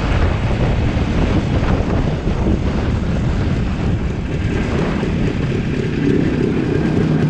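Wind buffeting the microphone of a moving motorcycle, with the motorcycle's engine running underneath as a steady rumble.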